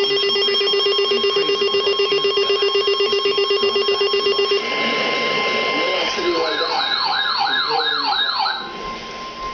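Electronic alarm sound effects. A fast-pulsing ringing tone like an electric bell runs for about four and a half seconds, then a steady tone over hiss. Partway through, a siren yelps up and down about three times a second for a couple of seconds, and the sound drops in level near the end.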